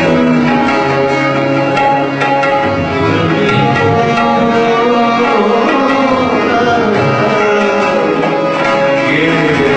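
Tabla playing under held melodic notes from an accompanying instrument: Indian classical-style music.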